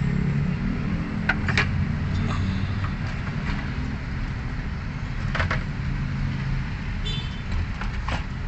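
A steady low mechanical hum runs throughout. Over it come a few sharp clicks and knocks of hand work on a stubborn fuel pump assembly, one about a second and a half in, another around five seconds and one near the end.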